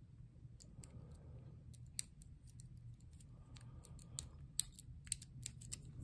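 Light metallic clicks and ticks of a lock pick working the pin stack of a small Lockwood padlock held under a tension wrench. The clicks come irregularly, sparse at first and thicker and sharper in the second half.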